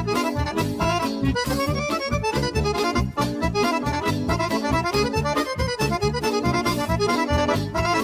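Accordion-led traditional folk dance music: a fast, busy accordion melody over a steady, driving bass beat.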